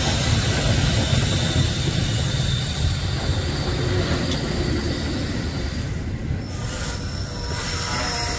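A train rolling on the rails: a steady low rumble of wheels on track, with a thin high wheel squeal coming in near the end.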